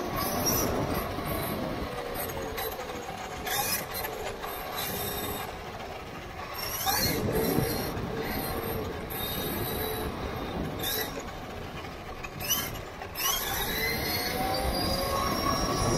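Traxxas Stampede 4x4 RC truck's electric motor and gears whining, the pitch rising and falling with the throttle, over tyre and road rumble picked up by a camera riding on the truck. Several short hissing bursts come in between.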